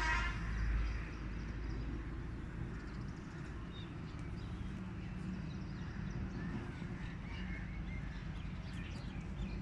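Outdoor background with a steady low rumble and scattered short bird calls.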